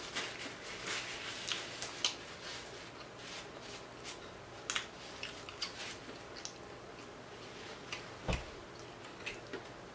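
Close-miked chewing of a mouthful of burger, with scattered small wet mouth clicks and smacks. One dull knock about eight seconds in.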